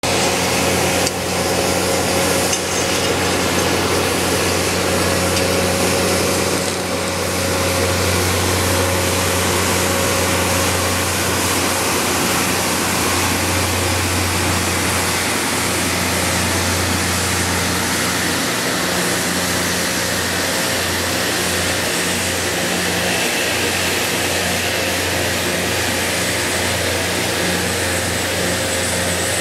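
Loram rail grinding train passing, its grinding stones running against the rails with a loud, steady, harsh grinding over a low engine hum.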